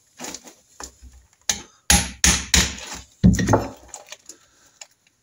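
A series of sharp metal knocks, about eight, with the loudest bunched in the middle. They come from working a con rod's big-end cap loose on a Norton Commando crankshaft to free the rod.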